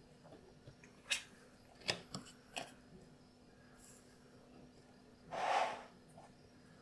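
Hands handling paper pattern pieces and cut leather on a glass board: several short taps and rustles in the first three seconds, then one louder half-second sliding rustle about five and a half seconds in.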